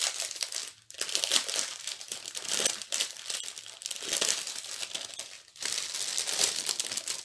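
Small clear plastic bags of round diamond-painting drills crinkling as they are handled, pausing briefly twice.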